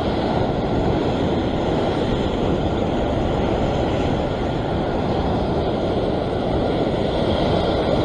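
Surf breaking and washing over a rock ledge, a steady rush of whitewater with no let-up.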